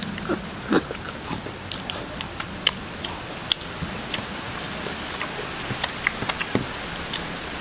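Eating sounds from chewing and sucking on cooked chicken feet held by hand: scattered short clicks and smacks of mouth, lips and bone over a steady light background noise.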